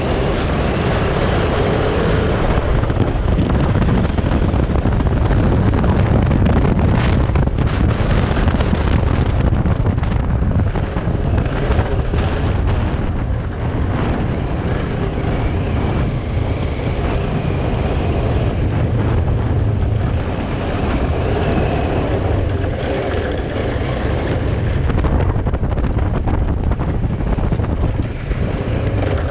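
Kawasaki Versys 650's parallel-twin engine running steadily as the motorcycle rides a loose gravel trail, with wind noise on the microphone.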